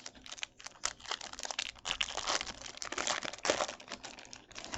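Foil wrapper of a Topps baseball card pack being torn open and crinkled in the hands, a dense run of crackles and small clicks.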